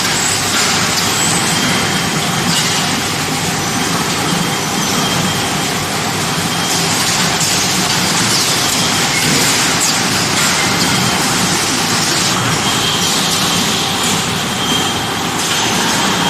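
Automatic salt-pouch baler packing machine running: a steady, loud mechanical din with faint brief whistles.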